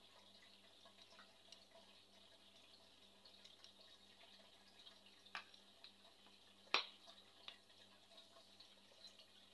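Near silence: faint room tone with a low steady hum and scattered small ticks. There are two short clicks, one about five seconds in and a sharper, louder one about a second and a half later.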